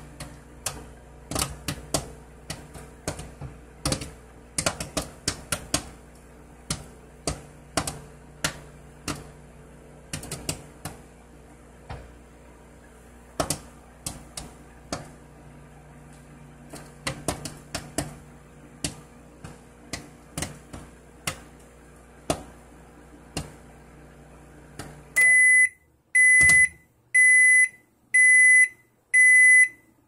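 Popcorn popping in a running microwave oven: sharp, irregular pops over the oven's steady hum, growing sparser as the kernels run out. About 25 seconds in, the hum stops and the microwave beeps five times, about once a second, signalling the end of the cooking cycle.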